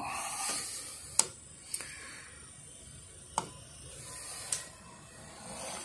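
A few sharp clicks at uneven intervals, from buttons pressed on a diesel air heater's control panel while it is set up before firing.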